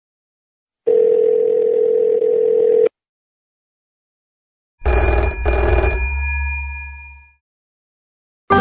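A telephone ringback tone: one steady two-second burst of a low hum-like tone, thin as if heard down a phone line. After a short gap a bell rings, struck twice in quick succession, and rings out over about two seconds.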